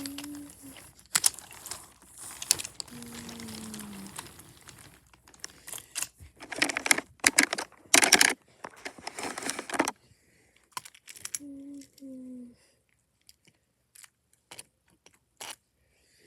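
Wooden toy trains and track pieces being handled and pushed along, an irregular clicking and clattering, busiest in the middle. A few short hummed notes come in, one sliding down about three seconds in and two more near the end.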